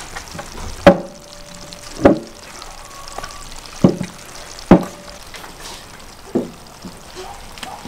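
Large glass jugs of beer knocked and set down on a wooden table: five sharp clinks spread over about six seconds, some leaving a short ringing tone, over a faint steady hiss.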